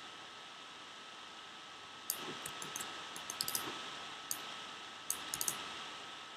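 Scattered light clicks of a computer mouse and keyboard being worked, in small clusters from about two seconds in. Beneath them runs a faint steady hiss with a thin high whine.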